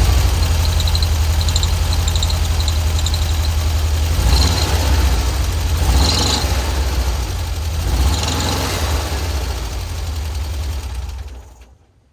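Volkswagen Kombi engine idling with a rapid high chirping squeal from its very slack drive belt, the noise flaring up briefly a few times; the belt's looseness is taken as the cause of the noise. The engine is switched off near the end.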